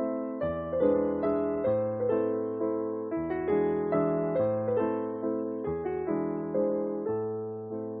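Background piano music: a gentle melody of struck notes, a few a second, each note fading after it sounds, with the phrase dying away near the end.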